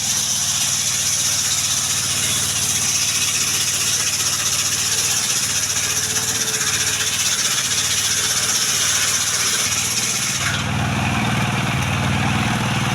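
A sawmill running while cutting coconut wood. A steady engine hum lies under a loud, high hiss from the blade, and the hiss stops about ten and a half seconds in while the engine keeps running.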